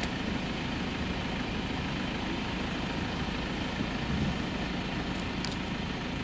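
Safari vehicle's engine running steadily at a low idle. A short high chirp comes a little after five seconds in.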